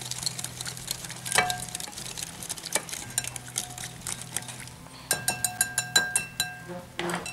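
Wire whisk beating a thin spice batter in a cut-glass bowl, with clicks and scrapes of the wires against the glass. About five seconds in comes a quick run of ringing clinks, some eight a second, lasting over a second.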